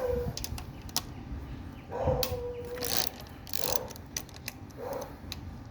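Ratchet wrench clicking in short runs as the bolts holding the carburetor and air filter on a Predator 212cc engine are turned out, with a few brief squeaky tones between the runs.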